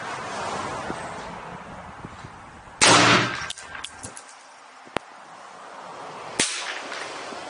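Springfield Armory SAINT AR-15 rifle firing one loud shot about three seconds in, which rings on briefly under the range roof. A sharp click follows, and a shorter, quieter shot comes near the end.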